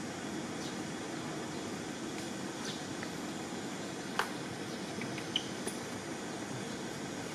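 Steady outdoor background noise, an even rumbling hiss, with a sharp click a little past halfway and a short high chirp about a second later.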